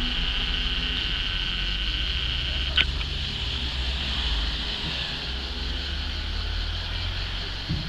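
Steady chorus of insects chirring, with a low rumble underneath and a single short click about three seconds in.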